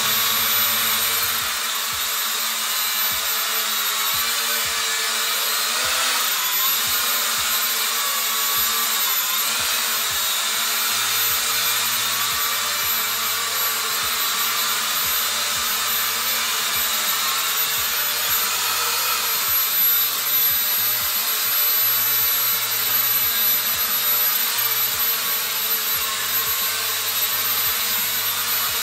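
E88 Pro mini quadcopter's motors and propellers whining steadily as it hovers, the pitch shifting slightly as it manoeuvres.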